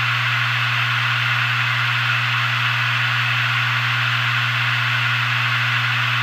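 Hitachi Deskstar 7K400 hard drive (7200 rpm) spinning steadily at full speed: an even hum with a hiss above it.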